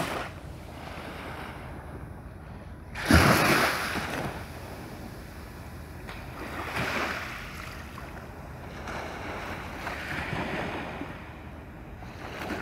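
Small waves washing against the shore in swells about every three to four seconds, the first and loudest coming in with a sudden splash about three seconds in.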